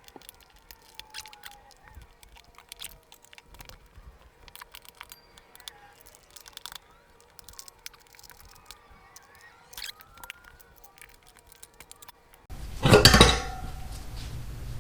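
Light metal clicks and clinks scattered through the quiet as tire irons work the tube-type tire's bead off a motorcycle wheel rim. About twelve seconds in, a sudden much louder scraping burst of about a second.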